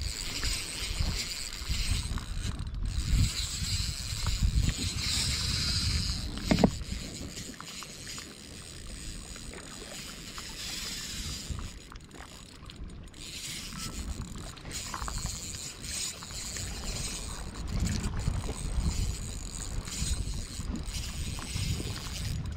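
Daiwa Fuego 3000 LT spinning reel being cranked steadily, winding line in on a surface-lure retrieve, over a low rumble of wind and water. One short louder knock comes about six and a half seconds in.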